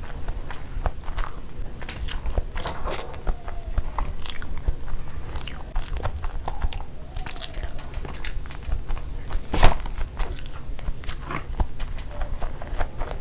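Close-miked chewing and wet mouth smacks from eating boiled eggs in thick masala gravy by hand, with fingers squishing egg in the sticky gravy. One loud, sharp click comes near the ten-second mark.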